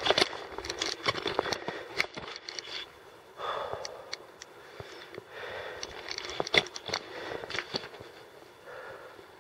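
A climber's heavy breathing, a few breaths about a second long each, over scattered crunching footsteps and clicks.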